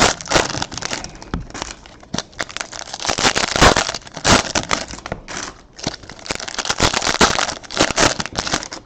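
Foil trading-card pack wrappers crinkling and rustling as they are handled, with scattered sharp clicks and scrapes.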